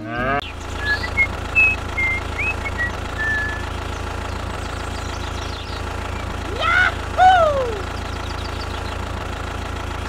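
A steady engine-like drone, as of a motor idling. Short bird chirps come over it a second or two in. Two animal calls, each rising then falling, come about seven seconds in.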